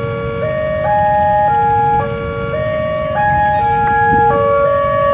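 Indonesian railway level-crossing warning alarm sounding while the barrier is down: a repeating electronic tune of steady tones that step up and down in pitch, a new note about every half second to a second. A low rumble of road traffic runs underneath.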